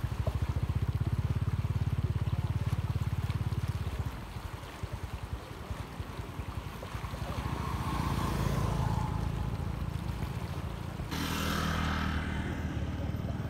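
A small motorbike engine idling with a fast, even putter. It drops back about four seconds in and comes up louder again near the end, over faint trickling water.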